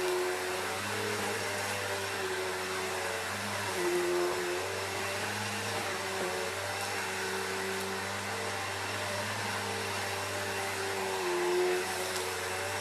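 Vacuum cleaner running steadily while sucking up a mess of dry dirt, its motor tone dipping briefly twice, about four seconds in and near the end.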